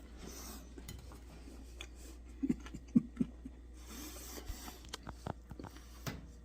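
Quiet clicks and scrapes of cutlery against a plate while eating, with a short cluster of light clicks about halfway through.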